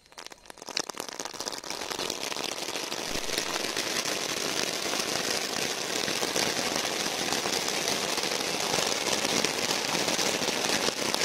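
Anar (flower-pot fountain firework) burning: a steady rushing hiss of spraying sparks with dense fine crackling, building up over the first two seconds after it catches.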